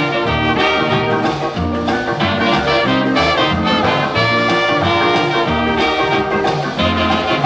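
Instrumental introduction of a calypso record: a brass-led band playing over a walking bass line, with no singing yet.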